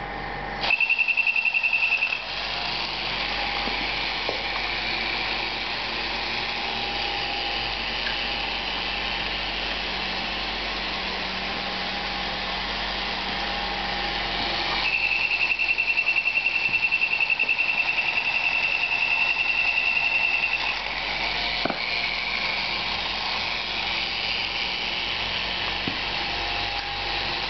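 Vintage Nomura battery-operated tin police tricycle toy running: its small electric motor and gears whir steadily as it travels across a tile floor. A high, steady buzzing tone sounds twice, briefly about a second in and for about six seconds in the middle, louder than the whirring; a single click comes near the end.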